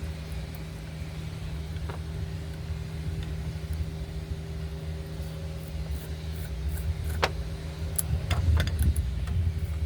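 A steady low mechanical hum with a constant pitch, and a few light clicks and taps near the end.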